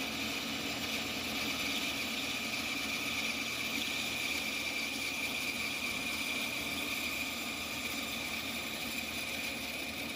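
Bandsaw running steadily with a high whine, its blade cutting through the protruding end of a hickory axe handle and its wooden wedge to trim them flush with the axe head.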